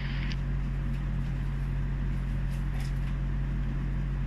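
Steady low mechanical hum with a light hiss, a few faint ticks about two and a half seconds in.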